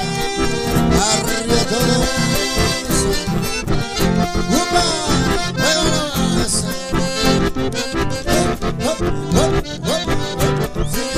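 Two button accordions playing a lively tune together over a strummed acoustic guitar with a steady beat; an instrumental passage with no singing.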